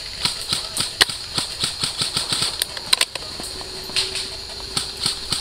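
Scattered sharp snaps of airsoft gunfire and BB hits, irregular, several a second. A steady hum joins about three and a half seconds in.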